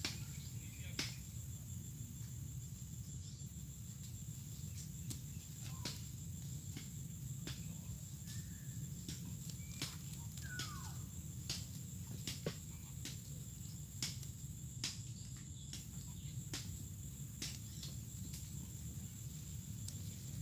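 Steady high insect chirring, as of crickets, with scattered sharp clicks and crackles of dry leaves and twigs being handled close by. A couple of short chirps sound near the middle.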